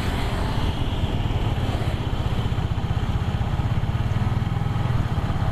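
Small motorbike engine running steadily while riding, with a rapid low pulsing and a steady hiss of road noise.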